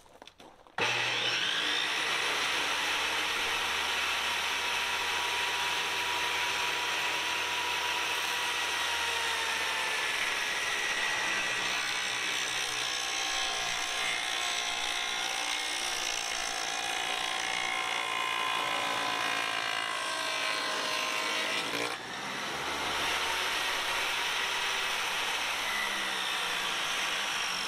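Table saw fitted with a dado blade running steadily as it cuts a groove in wood, its pitch wavering slightly. It dips briefly about three-quarters through, then carries on.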